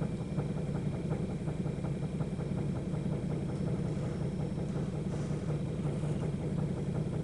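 Steady low machine hum with a fast, even pulse, as of a small motor running.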